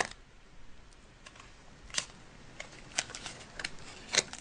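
Scattered light clicks and taps of plastic playset pieces and Play-Doh being handled, about half a dozen in all, the sharpest about two seconds in and near the end.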